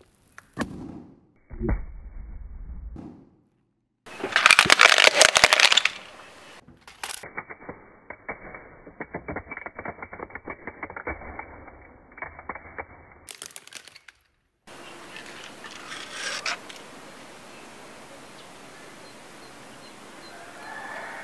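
Car tyre crushing objects. A soft squishy ball is pressed down with a dull thud, then comes a loud crackling crunch. After that a plastic toy car cracks and snaps under the tyre in many small sharp cracks for several seconds, followed by a steady faint hiss.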